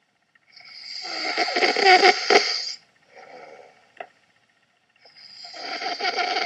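A man snoring in his sleep: two long, rattling snores, each growing louder as it goes, with a softer breath between them. The second snore starts about five seconds in.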